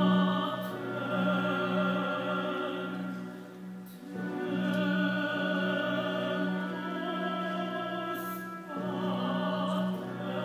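Live operatic singing over orchestral accompaniment, in long held phrases with vibrato. The phrases break off briefly about four seconds in and again near nine seconds.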